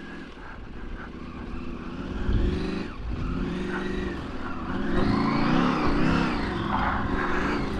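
Off-road motorcycle engine running under a varying throttle on a dirt trail, its pitch rising and falling as it revs, louder from about five seconds in.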